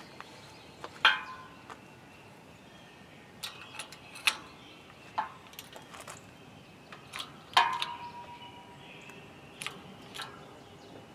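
Sharp metallic pops and pings, about eight spread irregularly, the loudest a little past the middle with a short ring: a seized piston in a Studebaker Commander inline-six block slipping in small jumps under the pressure of a hydraulic shop press.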